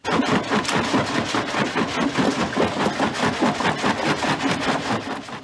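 Jaw-type stone crusher running, rock cracking and grinding between its ridged jaw plates: a dense clatter of rapid cracks over a steady mechanical hum.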